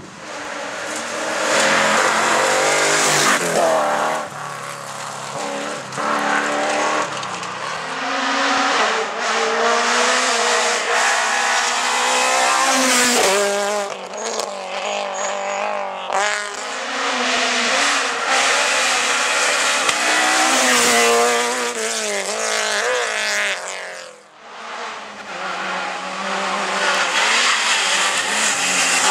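Several rally cars passing one after another, each engine revving hard and rising in pitch through gear changes, then dropping away. The sound breaks off and starts again several times as one car gives way to the next.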